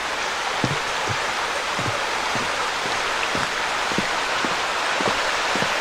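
Creek water rushing with a steady hiss, with footsteps thudding at walking pace, about two a second.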